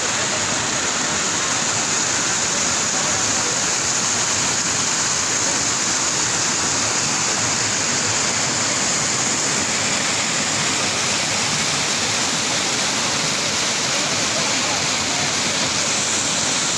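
Steady rushing of white water pouring over rock ledges in a waterfall cascade, close to the microphone.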